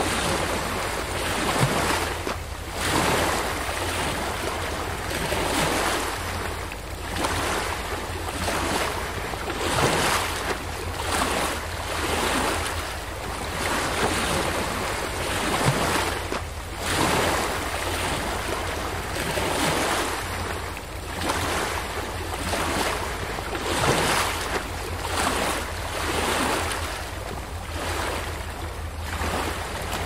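Small sea waves washing in over a rocky shore and splashing against the rocks, swelling and falling back every second or two over a steady low rumble.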